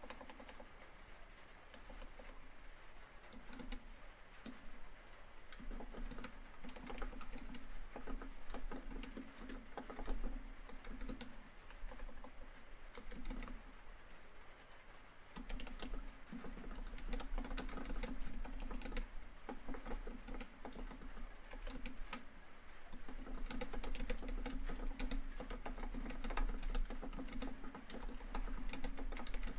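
Laptop keyboard typing in quick runs of key clicks, broken by short pauses, over a faint steady patter of rain on a tin roof.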